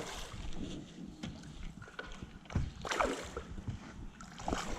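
Steady sound of river water around the angler, with scattered light knocks and rustles and a couple of brief louder swishes.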